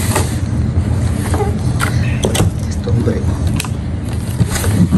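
A large cardboard box being opened by hand: its flaps are pushed back and handled, giving several sharp cardboard rustles and knocks over a steady low rumble.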